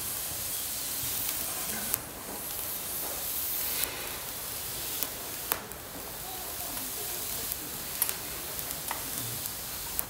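Wood fire of damp twigs hissing and sizzling as the water in the rain-soaked wood boils off, with sharp crackles and pops every second or two.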